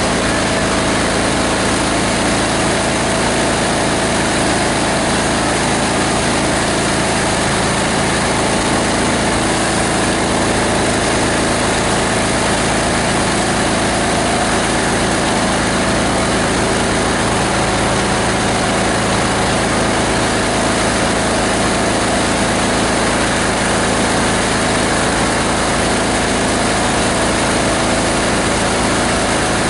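An 18 HP diesel engine driving a multi-blade plastic grinder, running steadily with no change in speed.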